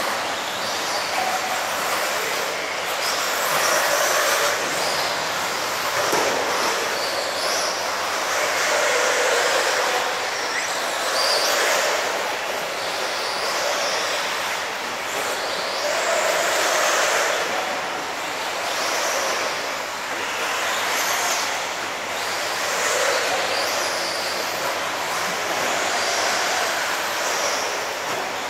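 Tekno EB48 1/8-scale electric RC buggies racing on a dirt track, their brushless motors whining and swelling and fading every few seconds as the cars pass.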